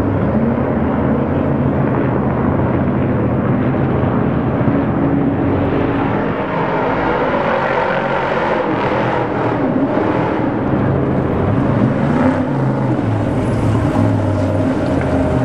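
Off-road Trophy Trucks' engines running hard over rough ground, the pitch rising and falling as the throttle is worked.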